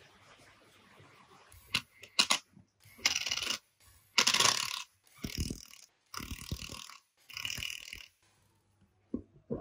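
Cordless impact driver hammering in five short bursts as it loosens the nut on the end of an old bench grinder's motor shaft. A couple of sharp clicks come first as the tool is set in place.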